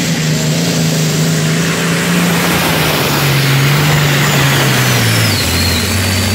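Pulling tractor's engine running hard while it drags the weight sled, a loud steady drone. Its pitch sinks slowly, then drops more sharply about five seconds in.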